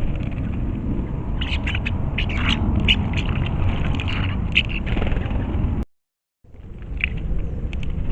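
A steady low rumble of wind buffeting a trail camera's microphone, with scattered short high ticks and chirps in the middle. The sound cuts out for about half a second near the end, then the rumble returns.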